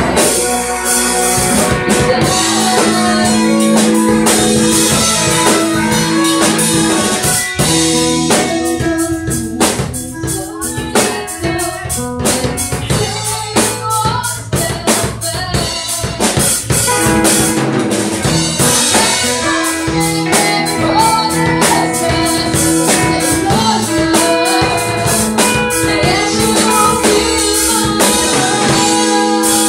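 Live band playing: drum kit and electric guitars, with a woman singing into a microphone.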